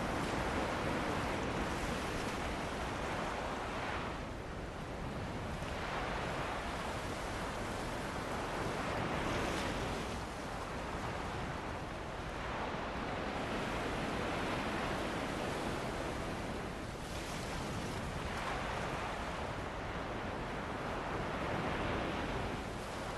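Ocean waves washing onto a shore with wind: a steady rush that swells and eases every few seconds.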